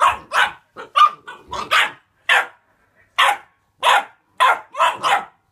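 Bullmastiff puppy barking, about a dozen short sharp barks, some in quick pairs.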